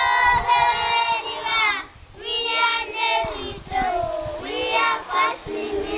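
A group of young children singing a song together in unison, in phrases of a second or two with short breaks between them.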